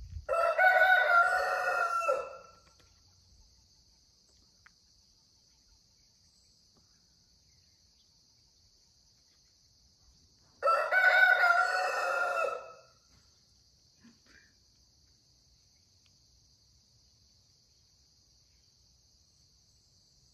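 Rooster crowing twice, each crow about two seconds long and about ten seconds apart.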